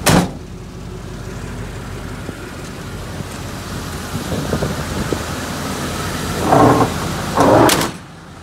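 A car door shutting right at the start, then the truck's LS V8 idling under heavy wind buffeting on the microphone, with two louder gusts near the end.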